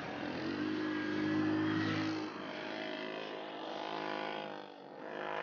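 ATV (quad) engine running at speed on sand, its pitch shifting as the throttle is worked.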